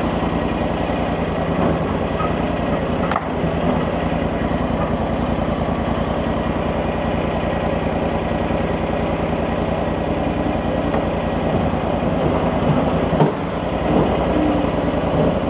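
Mini skid steer's 23-horsepower gasoline engine running steadily, with two brief knocks, one about three seconds in and one near the end.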